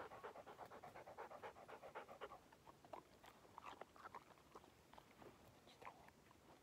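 English setter panting in a quick, even rhythm, which thins out after about two and a half seconds into fainter, scattered breaths.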